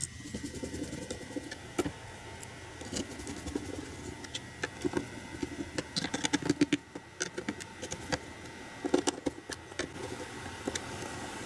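Irregular light clicks, taps and rattles of small hard objects being handled, busiest about five to seven seconds in and again about nine seconds in.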